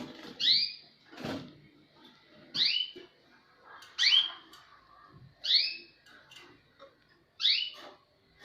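A small cage bird calling: five short, loud chirps that slide down in pitch, repeated about every one and a half seconds. Near the start there are a couple of short knocks.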